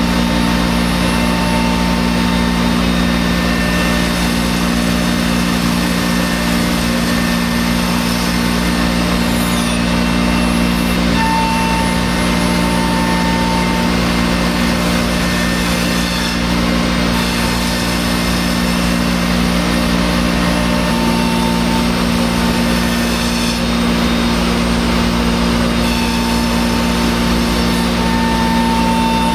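5-axis CNC router spindle running steadily while its bit mills into a laminated wood block, a constant machine hum with a higher tone that comes and goes every few seconds.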